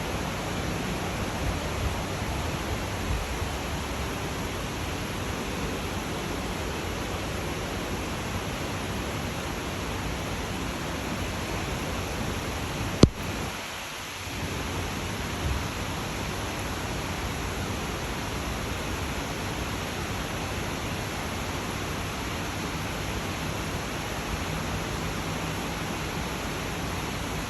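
Steady rain falling, an even hiss. About halfway through comes one sharp click, and the rain sound dips briefly after it.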